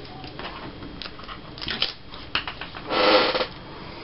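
Paper and craft pieces being handled on a tabletop: scattered light taps and rustles, with a louder noise lasting about half a second about three seconds in.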